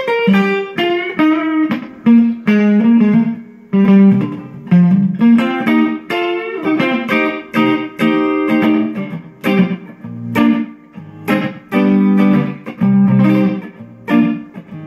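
Stratocaster-style electric guitar played through an amplifier: an instrumental passage of picked single notes and chords, in short phrases with brief gaps between them.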